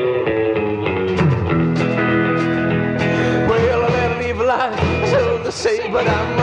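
Rock and roll band playing an instrumental intro: electric guitar with drums and bass, the guitar's notes bending and wavering through the middle.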